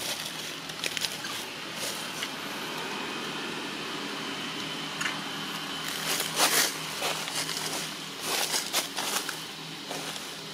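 Dry fallen leaves crackling and rustling as macaques shift about in the leaf litter, with a cluster of sharper crunches about six and a half seconds in and more around eight to nine seconds.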